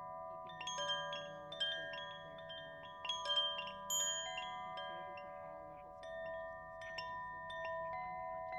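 Chimes ringing: metal tones struck at irregular moments, sometimes several in quick succession, each ringing on and overlapping the others.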